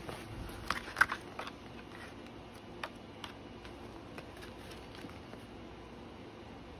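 A spiral-bound sticker book being handled and its paper pages lifted and turned: a few sharp taps and clicks, the loudest about a second in, then a few light clicks.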